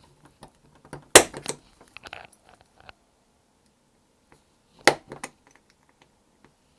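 Small steel hand tool clicking and scraping against a diecast metal toy car as its crimp tabs are pressed closed, with two sharp metallic clicks, about a second in and again near five seconds, each trailed by a few lighter taps.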